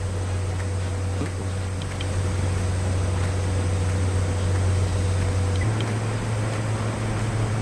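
Snowline F135 cordless camping fan running, a steady low motor hum with the hiss of moving air. The hum shifts slightly higher about five and a half seconds in.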